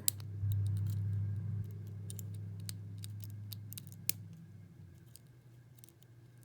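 Small, sharp metallic clicks of a lock pick and tension wrench working the pins inside a six-pin First Watch padlock while it is being picked, with a low hum that swells about half a second in and fades away by about five seconds.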